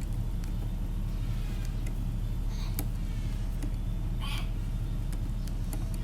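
Steady low background hum, with a few scattered light clicks of small metal parts as an alternator is being reassembled by hand.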